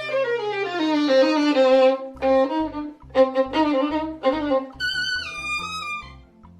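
Violin music: a long glide down in pitch, then short notes over a low pulsing accompaniment from about two seconds in, and a phrase that steps down near the end.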